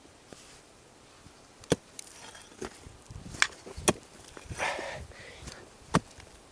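About five sharp knocks and clicks at uneven intervals, with a short scraping rustle a little after the middle.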